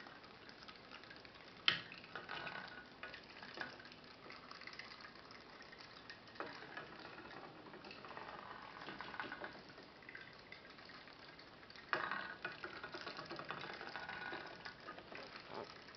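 Toy putt-putt steam boat with a quartz test-tube boiler running, its steam pulses giving a faint, irregular gurgling and sputtering of water at the exhaust tubes. A sharp tick comes about 2 s in, and the sound grows louder and busier from about 12 s.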